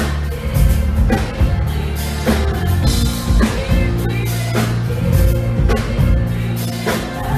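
Loud live pop music with a steady drum beat, bass and singing, heard from within the audience.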